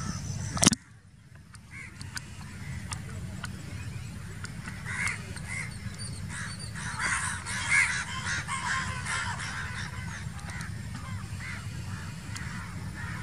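Low, steady rumble of a Boeing 737-800's jet engines as the airliner rolls out on the runway after landing. Over it, a chorus of birds calls, busiest in the middle. A sharp knock comes just under a second in.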